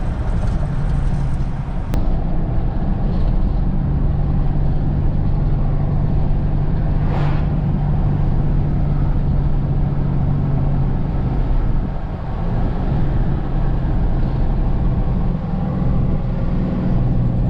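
Diesel truck cruising at highway speed, heard from inside the cab: a steady low engine drone with road and tyre noise.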